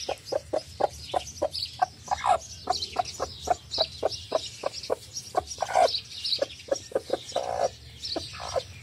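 Broody hen clucking as she settles onto her eggs: a steady run of short, low clucks, about four a second, with a few longer, louder calls mixed in.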